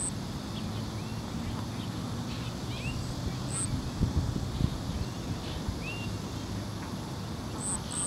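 Small songbirds calling outdoors: scattered short, very high chirps and brief slurred notes, over a steady low hum. A couple of low thumps come about four seconds in.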